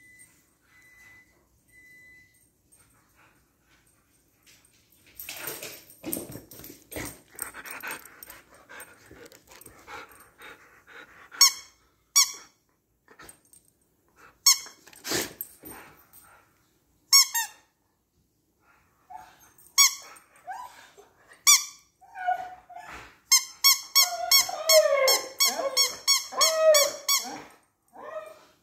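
A squeaky toy soccer ball squeezed by hand, first in single squeaks and then in a quick run of squeaks near the end, while a Siberian husky whines and vocalizes along with it.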